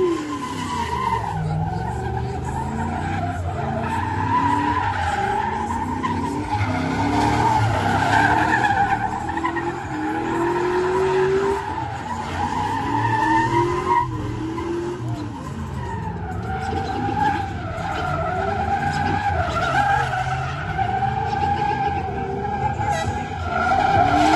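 Pickup truck doing donuts: its rear tires squeal in a continuous, wavering screech while the engine revs up and down again and again.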